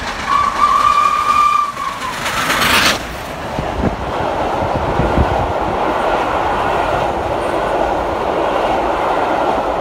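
Steam train sound effect: a whistle blast lasting about a second and a half, a short loud hiss of steam, then a steady rushing noise of a train running, with a few low thumps a few seconds in.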